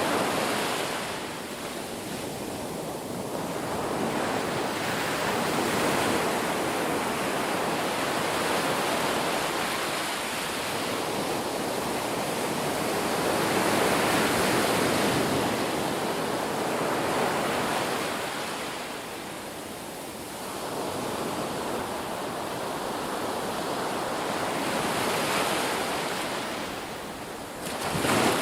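Ocean waves breaking on a beach: a continuous surf hiss that swells and eases every several seconds, with a sharper surge near the end.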